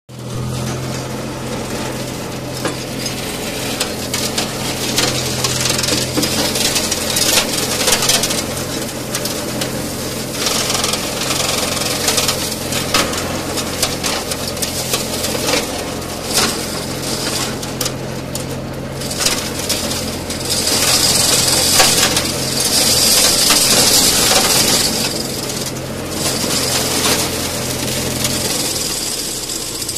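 Small tractor's engine running steadily while its rear-mounted mulcher chews through dry grass, brush and saplings, with irregular cracking and clattering of wood. The shredding is loudest between about 20 and 25 seconds in, and the steady engine tone drops away near the end.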